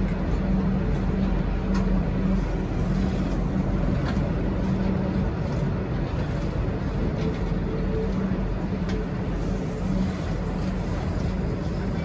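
V/Line passenger carriages rolling past on the rails as the train departs: a steady rumble of wheels on track with a low hum and a few faint clicks.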